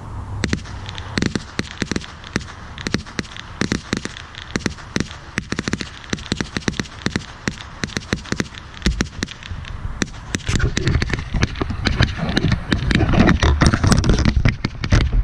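Firecrackers going off in a rapid, irregular string of sharp cracks, several a second. They get denser and louder from about ten seconds in.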